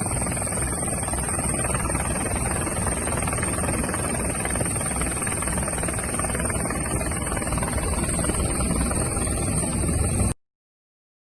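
Helicopter engine and rotor noise: a steady drone with a constant high whine. It cuts off suddenly about ten seconds in, leaving a second of silence.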